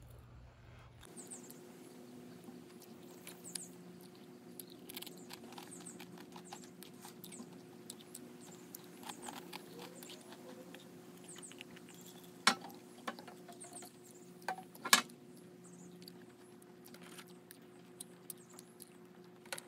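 Quiet ambience of a steady low hum with scattered small clicks and crackles, broken by two sharp clicks about twelve and fifteen seconds in.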